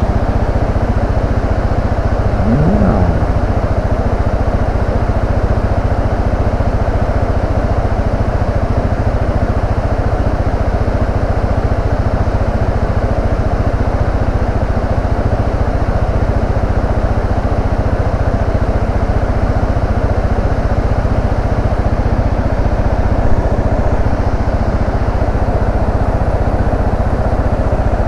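Carbureted Yamaha Serow 250's air-cooled single-cylinder four-stroke engine running steadily while riding a forest road at an easy, even pace.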